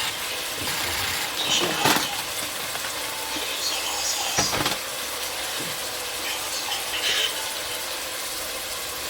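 Onions and spices frying in oil in pots, a steady sizzle, with a couple of knocks and scrapes of a utensil stirring about two seconds and four and a half seconds in.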